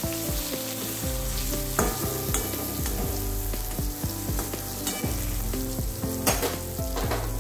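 Brinjal (eggplant) slices sizzling steadily as they shallow-fry in oil in a kadhai, with a few sharp clicks and scrapes of a spatula against the pan.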